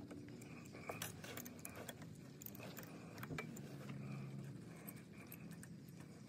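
Faint scattered clicks and light metallic taps as the carburetor mounting bolt on a Baja 90 ATV engine is worked loose by hand. A faint steady low hum sits underneath.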